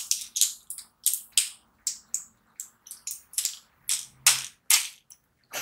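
Plastic wrapper of a cider candy packet crinkling and crackling as it is torn open and handled: a rapid, irregular run of sharp crackles.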